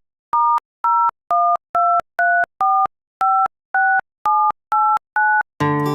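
Touch-tone telephone keypad dialing a number: about eleven short two-note beeps, roughly two a second, each key giving a different pair of tones. Acoustic guitar strumming starts near the end.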